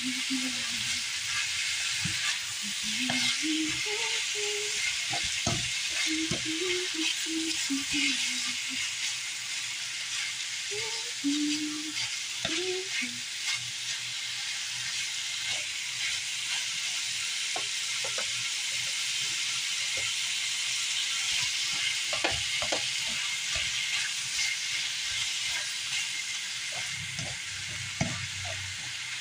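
Chicken breast pieces and sliced onion sizzling in butter in a frying pan as they brown, stirred with a utensil that clicks and scrapes against the pan.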